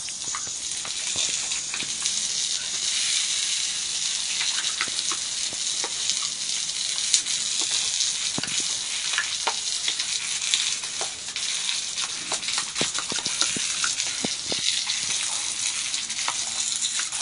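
Water from a garden hose spraying and splattering onto a wet concrete patio: a steady hiss with many small splashes through it.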